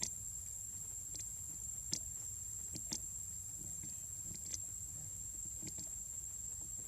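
Steady high-pitched insect drone over a low background rumble, with a few faint scattered clicks.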